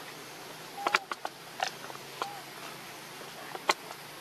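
Young macaques on dry leaf litter: scattered sharp clicks and crackles, the loudest near the end. Two brief faint squeaks come, one about a second in and one a little past two seconds.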